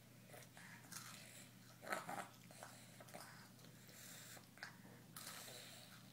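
Faint mouth sounds of a toddler chewing and sucking on a dipped, soggy snack: a few soft, scattered smacks, the loudest about two seconds in.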